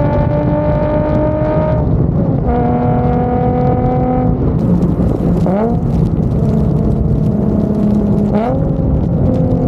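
Nissan 350Z's VQ35HR V6 through a Tomei trumpet exhaust, cruising under light throttle with a steady engine note. The note drops in pitch with gear changes about two seconds in and again around the middle. There are short rising revs a little past the middle and near the end.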